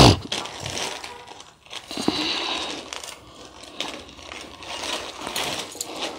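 Malabar spinach (pui shak) stems being peeled and snapped by hand: soft crackling and rustling of stalks and leaves with small scattered clicks, after a brief thump at the start.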